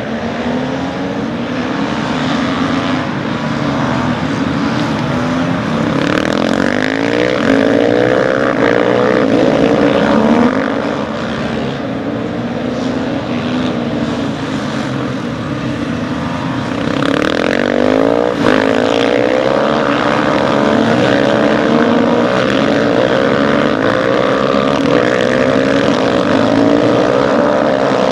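Several supermoto motorcycle engines racing together, revving up and down through the gears in overlapping waves, louder a quarter of the way in and again past halfway.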